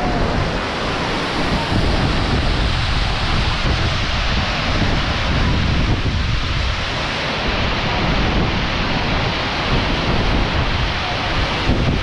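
Large waterfall pounding close by: a loud, steady rush of falling water.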